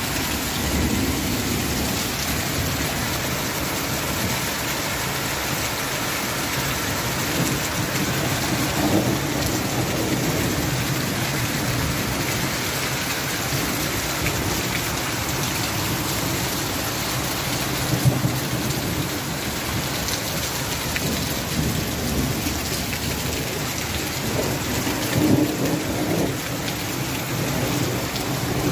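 Hail and heavy rain pelting down in a hailstorm: a steady, dense hiss of impacts, with a couple of brief louder moments.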